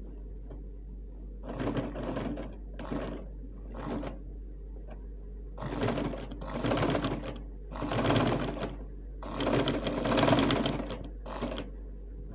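Sewing machine stitching a seam through denim in short stop-start runs, about eight bursts of a second or less each, beginning about a second and a half in.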